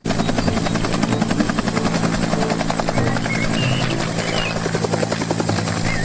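Bell UH-1 Huey helicopter lifting off and flying: the rapid, even beat of its two-blade main rotor over a steady low engine and gearbox drone.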